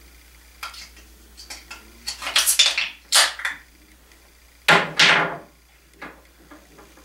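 Hard objects being handled and clattering: a few light clicks, then two loud bursts of rattling and knocking, about two seconds in and again about five seconds in.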